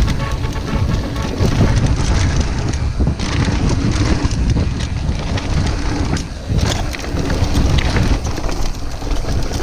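Mountain bike riding fast down a dry dirt trail: wind buffeting the camera microphone over the rumble of the tyres on the loose surface, with frequent knocks and rattles from the bike over bumps.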